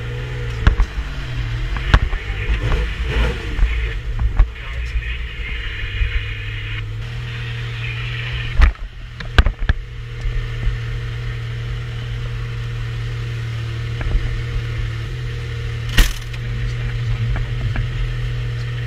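Metro 6R4's V6 rally engine idling steadily, heard from inside the cabin, its pitch wavering in the first few seconds, with a few sharp knocks and clicks in the middle and near the end.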